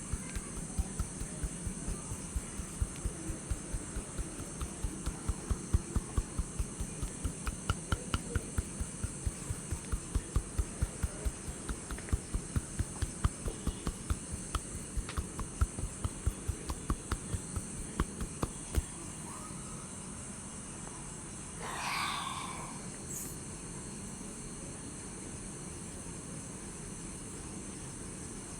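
Steady chirring of crickets from a night-nature ambience, with a quick, even run of soft thumps from hand-tapping massage strokes that stops about two-thirds of the way through.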